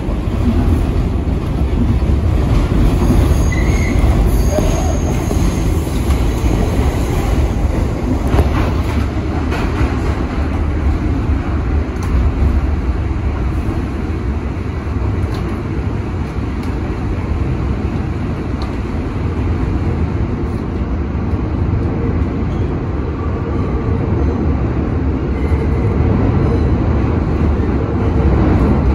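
Inside an R62A New York City subway car under way through a tunnel: the steady, loud rumble of wheels on rail, with a few sharp clicks over rail joints.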